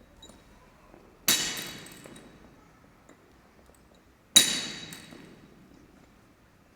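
A loaded barbell hits the floor twice, about three seconds apart, its plates clanging and ringing for about a second each time.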